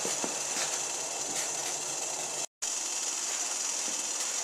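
Steady hiss with a few faint crackles from a small wood-gas stove burning pellets, its flame keeping a steel bowl of water boiling evenly. The sound drops out for a moment about halfway through.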